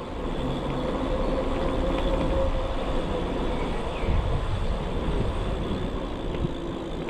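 E-bike with a 1000 W rear hub motor under way uphill: a steady low rumble of riding noise with a faint motor whine that drifts slightly lower in pitch.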